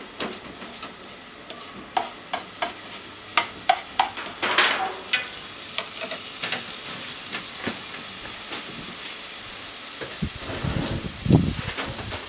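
Minced chicken sizzling in a frying pan while a wooden spatula stirs it, scraping and clicking against the pan several times in the first half. Near the end there is a louder low thump.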